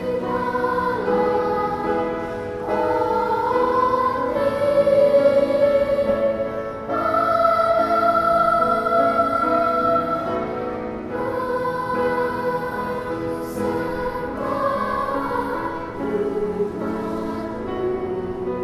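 Elementary-school children's choir singing a slow song, with long held notes.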